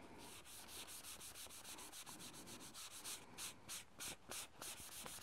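A folded kitchen-paper pad rubbed quickly back and forth over bare, sanded sycamore, working in water-based blue wood stain. The faint scuffing comes at about four to five strokes a second, with a few louder strokes standing out in the second half.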